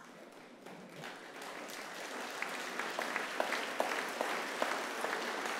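Large seated audience applauding; the clapping starts faint and swells over the first couple of seconds into steady applause.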